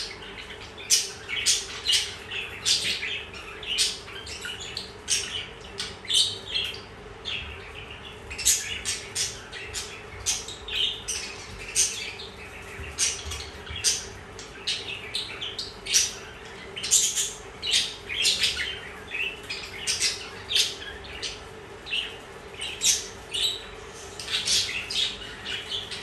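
A courting pair of budgerigars chirping and chattering in quick short calls, several a second, over a faint steady hum.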